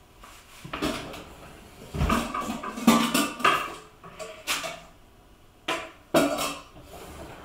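Metal pots and pans clanking and clattering as they are shifted around while a cooking pot is taken out, in a series of irregular knocks with short metallic ringing.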